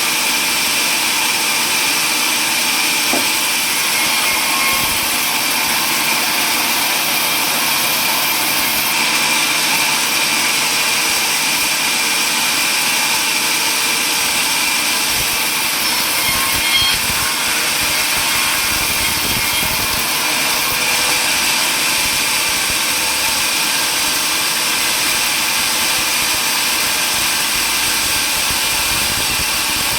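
Table saw running steadily and sawing wood: a continuous, even machine noise with a faint steady whine, unbroken throughout.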